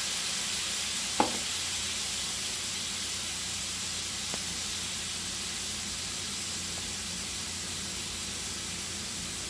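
Caramelized diced apples and onions sizzling and bubbling in a skillet with wine that is reducing as its alcohol cooks off: a steady hiss, with one sharp tap about a second in.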